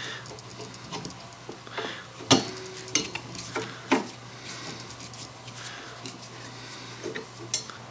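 Open-end wrench clicking and clinking against the 3/4 inch nut and the cast iron flywheel assembly of an antique Singer treadle base as the nut is backed off. There is a handful of sharp metallic clicks; the loudest, about two and a half seconds in, rings briefly.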